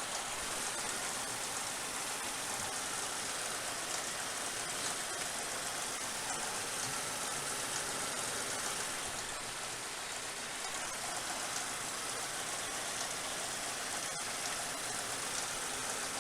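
Steady, even hissing run of a 1999 Suzuki Grand Vitara's 2.5-litre V6 engine running during a misfire test, with no distinct beat standing out.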